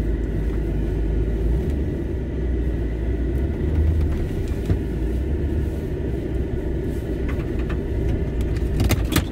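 Cabin noise inside a Nissan Y62 Patrol crawling over a rough dirt track: a steady low rumble from its V8 engine and the tyres on the ruts. A few sharp knocks or rattles come near the end.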